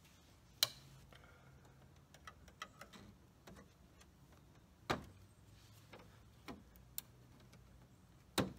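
Scattered sharp clicks and light taps of a pry tool and metal screwdriver working a chrome Audi grille emblem loose from its plastic clips. The sharpest clicks come about half a second in and near five seconds in.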